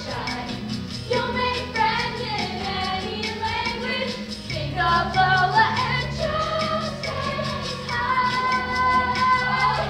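Young voices singing together in chorus over an upbeat musical accompaniment with a steady beat.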